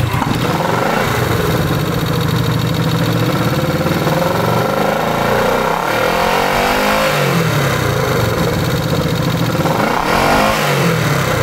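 1970 Honda CB350's parallel-twin engine running just after starting. It is revved up twice, about halfway through and again near the end, and each time settles back to idle.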